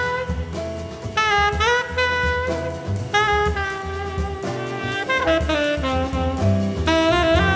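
Jazz quartet playing: tenor saxophone in short phrases over plucked double bass and drums with cymbals. The saxophone comes in about a second in, again around three seconds, and near the end.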